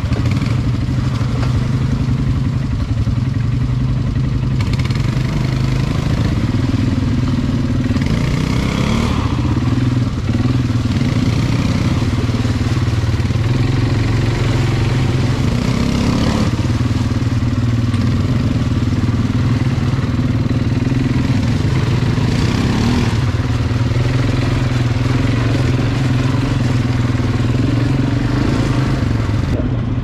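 ATV engine running under a varying throttle, its pitch swelling and easing several times.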